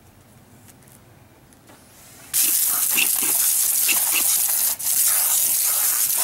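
Water spraying from a PVC undercarriage washer wand, a loud steady hiss of jets striking the pavement and the underside of an SUV, starting abruptly about two seconds in after a quiet start, with a brief dropout near five seconds in.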